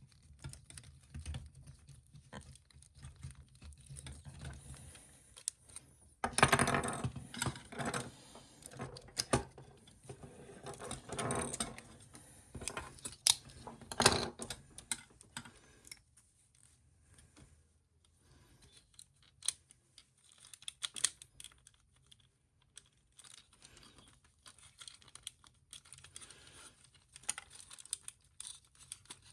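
Hard plastic action-figure parts being handled and prised off by hand: irregular clicking and rattling of snap-fit pieces, busiest in the first half and sparser after.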